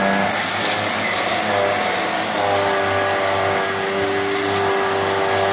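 Cyclonic upright vacuum cleaner running on carpet, sucking up loose debris. Its motor whine holds steady, and the tone shifts and strengthens a little about two seconds in.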